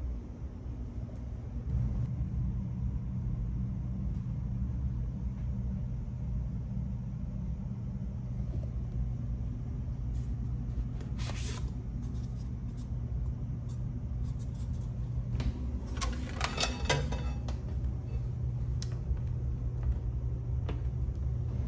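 Steady low rumble of room ventilation in a small tiled washroom, with a few short clicks and clatters of fixtures being handled, the loudest about 11 s and 16–17 s in.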